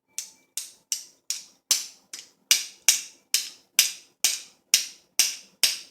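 Hammer tapping a punch to drive a tapered roll pin into an AR-15 charging handle latch: about fourteen sharp, evenly spaced taps, a little over two a second.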